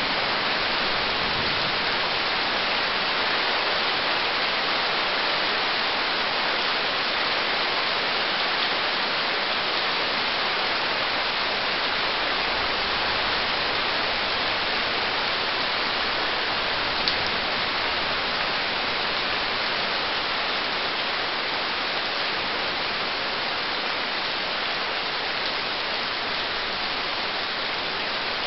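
Steady rain falling: an even, unbroken hiss, with one sharp click about seventeen seconds in.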